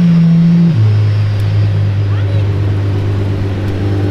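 Apollo IE's V12 engine held at raised revs with a steady note, then dropping suddenly back to a steady idle under a second in.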